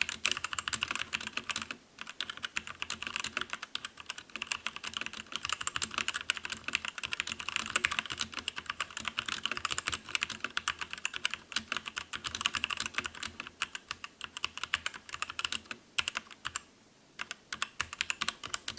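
Fast, continuous typing on a MOTOSPEED K87S mechanical keyboard with red linear switches: a dense run of key clacks, very smooth and very quiet. There are short pauses about two seconds in and again around sixteen seconds, and the typing stops near the end.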